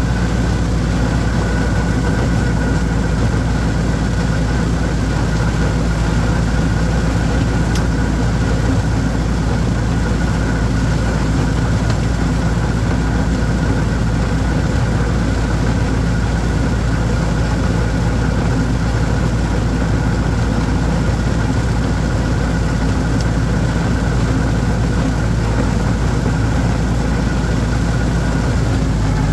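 Holder orchard tractor's engine running at a steady speed while mowing.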